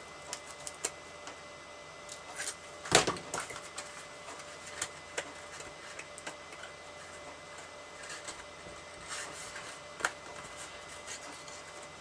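Card stock being handled, creased and folded into a small box by hand: light rustles and scattered taps, with one sharper, louder knock about three seconds in.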